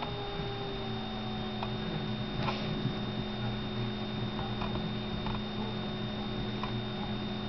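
Steady electrical hum with a thin high whine over room tone, broken by a few faint soft ticks.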